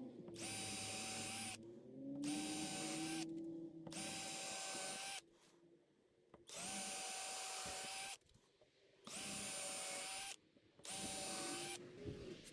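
Power drill with a 7/64 bit running in six short bursts of about a second each, with a steady motor whine, drilling pilot holes into 2x4 lumber.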